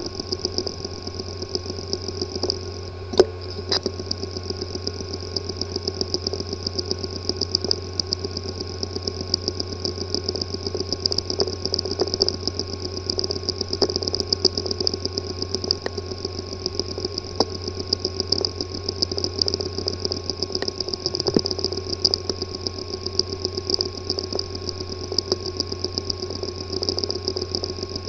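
Hard drive with a physically damaged head-disk assembly, running with a steady hum and whine under a rapid, irregular ticking, with two louder clicks a little over three seconds in. The clicking is the typical symptom of a failed disk assembly that no computer can access.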